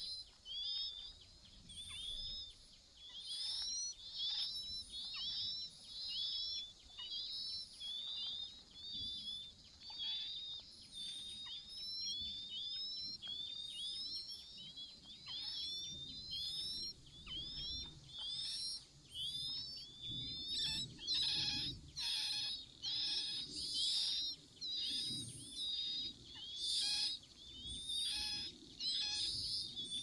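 Chinese hwamei nestlings begging for food: a rapid, continuous series of short, high, down-slurred cheeps. The cheeps grow louder and denser about two-thirds of the way through, as the parent feeds the brood.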